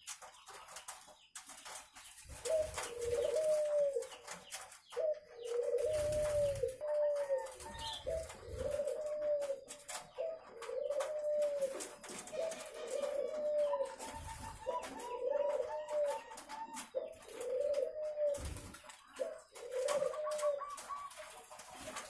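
Ringneck doves cooing: a long run of rolling coos, about one a second, starting a couple of seconds in and stopping shortly before the end. A few low thuds fall between the coos.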